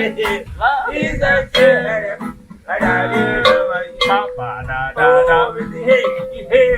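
Song playing with plucked guitar and a man's voice over it.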